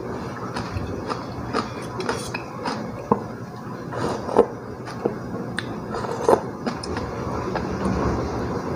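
Metal spoon clinking and scraping against a stainless steel bowl in scattered light knocks as soup is eaten.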